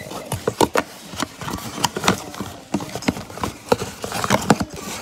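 Cardboard shipping box being torn open by hand: a run of irregular rips, crackles and scrapes.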